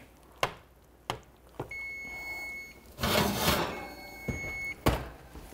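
Electric oven beeping: a long, high beep about a second long, sounding twice, about two seconds apart, as its timer goes off. Mixed in are clicks and clatter from a glass baking dish and the oven rack being handled, and a sharp knock near the end as the oven door shuts.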